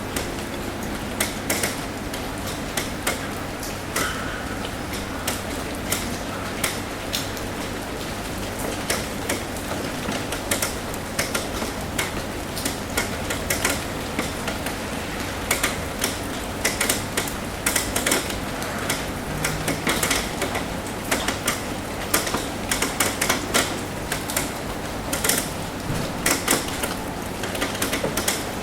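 Rain tapping on a roof: irregular sharp drips and taps over a steady rain hiss, growing denser about halfway through.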